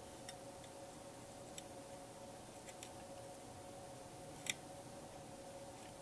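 Small, faint clicks and ticks of a soldering iron tip and solder wick touching a circuit board while cleaning old solder off a connection, the sharpest click about four and a half seconds in, over a faint steady hum.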